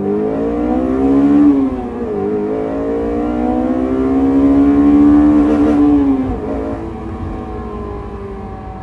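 Honda S2000 AP1's four-cylinder engine breathing through a K&N cold air intake, accelerating hard. The engine note climbs, dips sharply about two seconds in, climbs again more slowly, then falls away after about six seconds as the throttle comes off.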